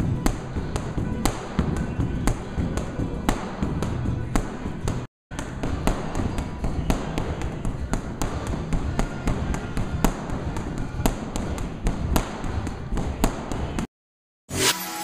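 Boxing gloves punching a free-standing heavy bag in fast, irregular combinations, several sharp smacks a second, over background music. The sound cuts out briefly twice, and a chiming jingle starts near the end.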